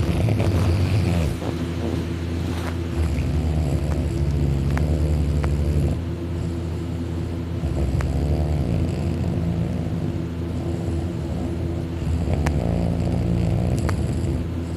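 A man snoring loudly while asleep on his back with his mouth open, long rattling snores that swell and ease every four to five seconds.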